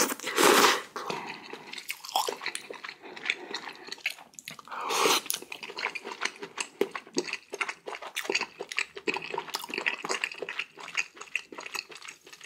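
A person eating spicy ramen close to the microphone: two long slurps, about half a second in and again about five seconds in, with wet chewing and mouth clicks in between.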